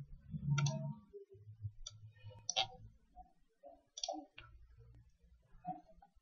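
A few faint, irregular clicks from a computer mouse during on-screen editing and scrolling, about five in all.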